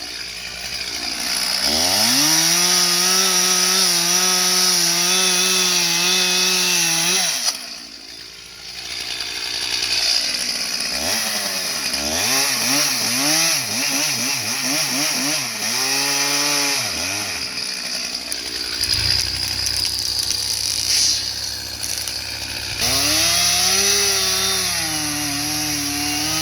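Stihl 361 two-stroke chainsaw revving up and held at high throttle for several seconds before cutting off sharply. It then idles between a run of quick throttle blips and revs up high again near the end.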